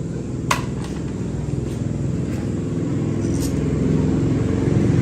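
A motor running with a steady low hum that slowly grows louder, with a single click about half a second in.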